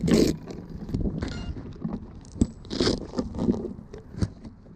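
Handling noise on a camera being moved around: cloth rubbing and scraping over the microphone in irregular crunches, with a sharp click about two and a half seconds in.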